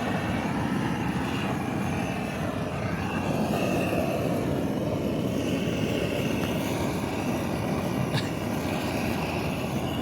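Campfire burning, a steady rushing noise with fine crackling and one sharp pop about eight seconds in.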